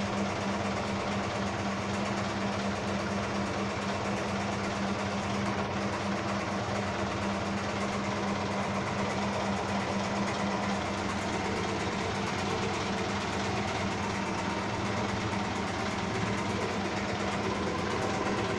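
Eida S18.5 washing machine running, with a steady motor hum and mechanical noise that holds constant.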